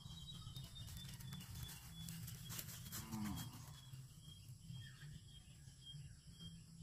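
A cow gives one short, low moo about three seconds in, faint.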